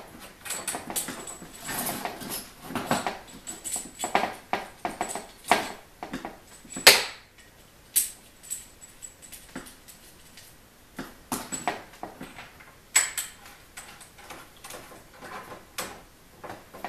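Clicks, taps and rustling from hands moving coax cables and screwing a terminating load back onto one port of a Comet triplexer, with a scatter of sharp clicks, the loudest about seven seconds in.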